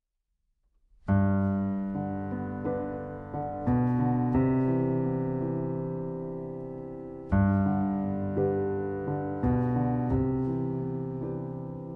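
Solo piano playing slow chords, each struck and left to ring and fade. It begins about a second in.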